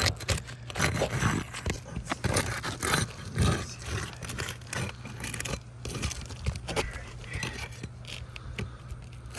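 Irregular scraping and crackling as a tool is worked under an asphalt roof shingle to break its adhesive seal.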